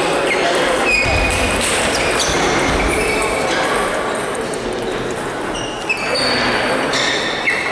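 Busy table tennis hall: celluloid-type ping-pong balls clicking on tables and bats from many tables at once, with short high squeaks and a hum of voices echoing in the large hall.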